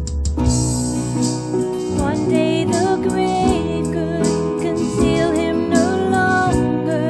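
Worship song with guitar accompaniment; a singing voice comes in about two seconds in, holding notes with vibrato.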